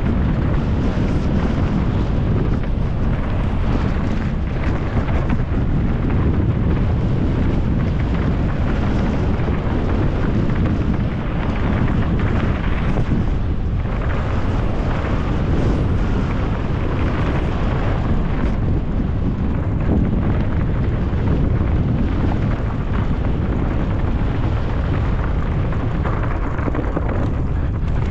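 Steady wind rumble on a camera microphone carried on a downhill mountain bike at speed, mixed with clatter from the bike running over rough trail.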